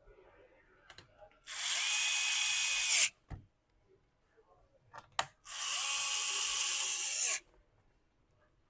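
Electric screwdriver driving the back-cover screws of a laptop back in: two steady motor whines of a second and a half to two seconds each, with a short knock between them.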